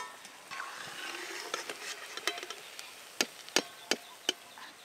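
Battered chops sizzling in hot oil in a steel karai, with about eight sharp metallic clinks as a steel slotted spoon knocks against the pan and a steel plate while the fried chops are lifted out. The sizzle is strongest in the first half and then dies down.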